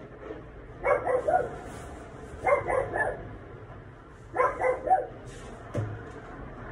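A dog barking in three short bouts of several quick barks each, about a second and a half apart, with a single knock near the end.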